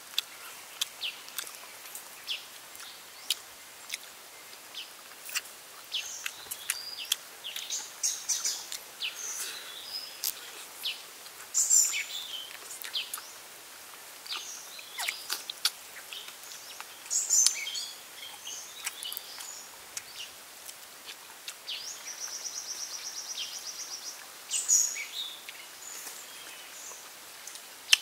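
Birds chirping, with a fast even trill lasting a couple of seconds near the end, over frequent sharp clicks and smacks of chewing and eating by hand.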